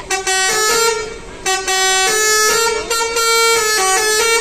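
Basuri-style multi-tone bus air horn played from a small keyboard, sounding a tune of held horn notes that change every half-second or so, with a short pause about a second in.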